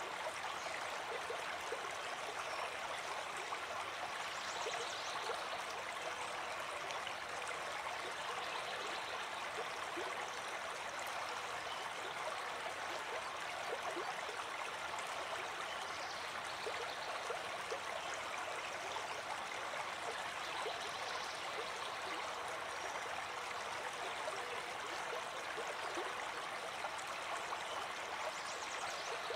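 A small brook running steadily over a shallow, rocky stretch: an even, unbroken rush of water.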